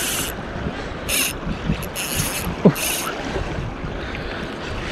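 Ryobi Ultra Power 1000 spinning reel sounding in three short bursts about a second apart while a big hooked fish is played on light line. Wind and waves wash underneath.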